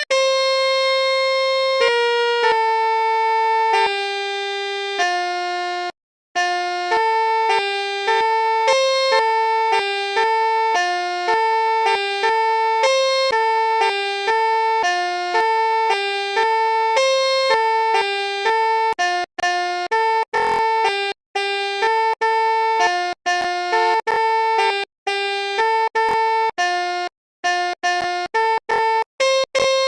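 Basuri telolet multi-tone horn playing a melody as a string of held notes that step up and down in pitch. There is a short break about six seconds in, and in the later part the notes come shorter and choppier, with brief gaps between them.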